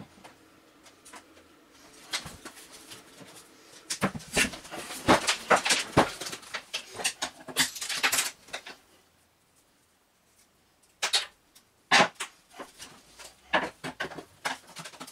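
Plastic vacuum cleaner housing and parts clicking and clattering as they are handled and pried apart, with a dense run of knocks in the middle and scattered clicks after a short pause.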